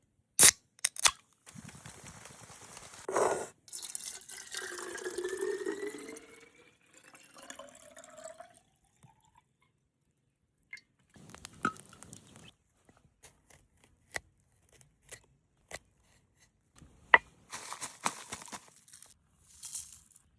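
Liquid being poured into a container, its pitch rising steadily as it fills, among scattered sharp clicks and knocks from handling.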